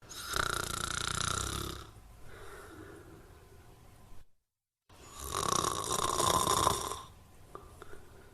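A person snoring: two loud snores on the in-breath, about five seconds apart, each followed by a quieter, longer out-breath. A brief dead silence falls between them.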